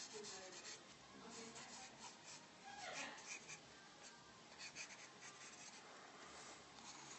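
Graphite pencil sketching on sketchbook paper: faint, repeated short scratchy strokes.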